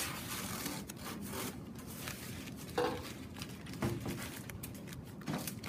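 Crumpled newspaper rustling and crinkling under the hands as a paper tail is pressed on and taped, with scattered short handling noises.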